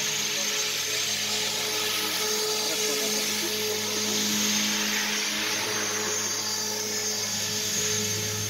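Radio-controlled model helicopter in flight, its motor and rotor giving a steady high whine over a low hum.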